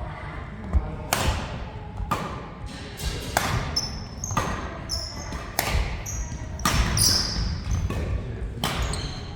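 Badminton rally: rackets strike the shuttlecock about once a second, with shoes squeaking on the court floor and footfalls underneath.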